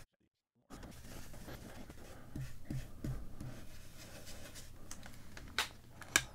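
Foam blending brush scrubbing dye ink through a plastic stencil onto cardstock: a steady scratchy rubbing, with a few soft taps in the middle. After a moment of dead silence at the start, it ends with two sharp clicks near the end.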